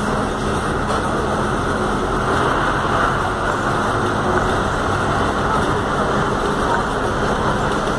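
A Volkswagen 17-230 OD city bus under way, heard from inside its cabin: the front-mounted diesel engine and road noise make a steady rumble.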